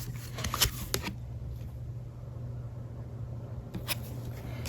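Trading cards being handled: a few short card taps and rustles, mostly around the first second and once near the end, over a steady low hum.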